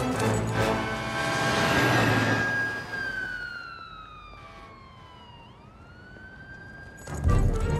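Fire engine siren wailing as the truck pulls away: one long tone that slides down in pitch, then rises again, coming in as the film score fades out about two and a half seconds in. A sudden loud hit comes near the end.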